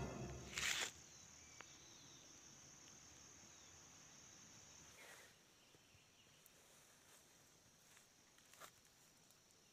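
Near silence: faint outdoor ambience with a steady, high insect drone, like crickets, that stops about five seconds in, then a few faint ticks. A music tail fades out in the first second.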